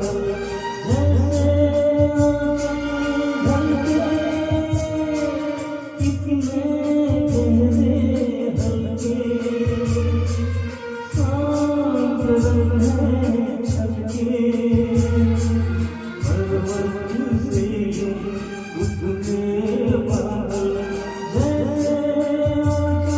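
Hindi song playing: long held melodic notes with singing over a pulsing bass and a fast, even ticking beat.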